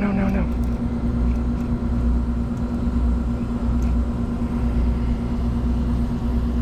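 Steady low mechanical rumble with a constant machine hum, unchanging throughout, with a few faint ticks.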